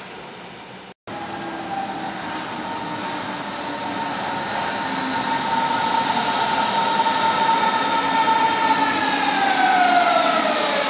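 Berlin S-Bahn electric train pulling into an underground station, growing louder as it comes in. Its drive whines in several steady tones that glide down in pitch near the end as it brakes.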